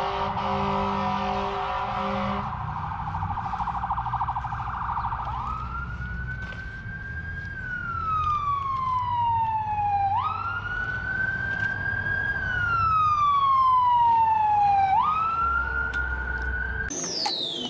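Emergency vehicle siren sounding over traffic rumble. It starts with a fast warbling tone, then goes into a wail that rises quickly and falls slowly about three times, and changes abruptly just before the end.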